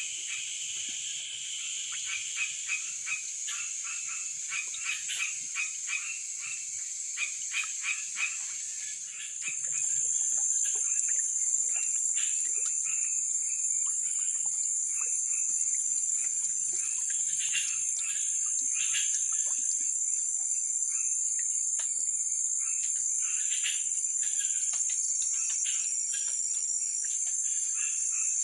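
Night swamp chorus. For the first eight seconds or so, frogs call in a quick run of pulses, several a second. Under them runs a steady high-pitched insect drone, which grows louder about nine seconds in.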